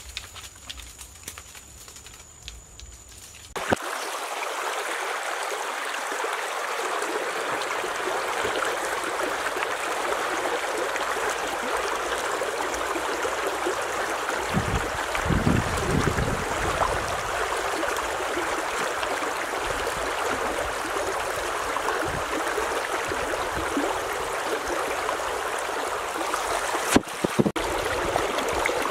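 Stream water running steadily, a constant rushing flow that starts suddenly about four seconds in, after a few quieter seconds with small clicks.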